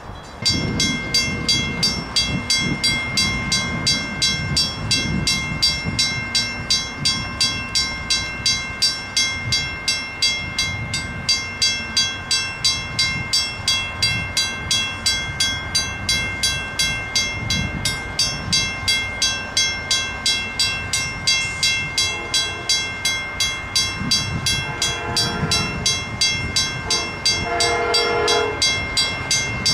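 Railroad grade-crossing bell ringing steadily at about two strikes a second while the gates are down and the warning lights flash. From about two-thirds of the way in, an approaching train's horn sounds in three blasts.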